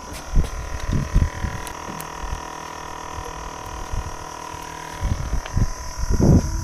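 Scattered low thuds and rumbling, loudest near the end, over a steady high-pitched insect drone.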